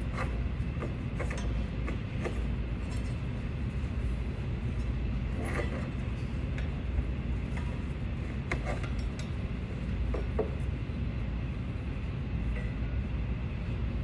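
Scattered metal clinks and clicks of tools and parts being handled in a Case backhoe's engine bay during fan belt tensioner work, over a steady low rumble.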